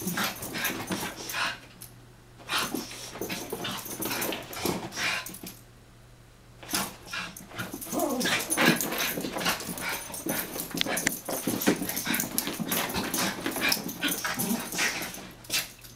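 Two Chihuahuas play-fighting, making dog noises and scuffling in irregular bursts, with short lulls about two seconds in and around the six-second mark.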